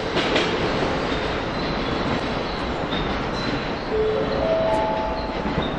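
Container freight train with Koki container wagons rolling past at speed: steady rumble with wheels clacking over rail joints and brief thin squeals near the end.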